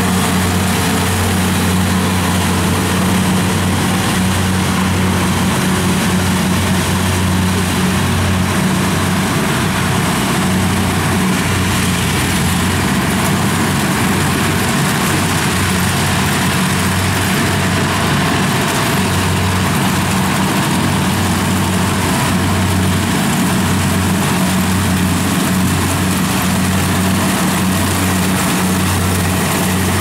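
Kubota DC-70 rice combine harvester's diesel engine running steadily under load while it cuts and threshes standing rice, a continuous low hum over the rush of the machinery.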